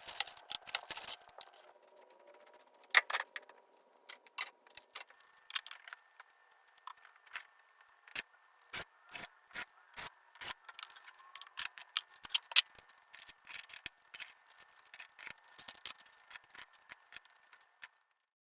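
Handling of clamps and their packaging: irregular clicks, clacks and rubbing, a few sharper knocks among them. The sounds stop shortly before the end.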